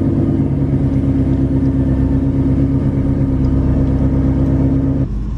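2013–14 Ford Mustang engine idling steadily with a pulsing exhaust note, heard from inside the cabin; the engine sound stops abruptly about five seconds in.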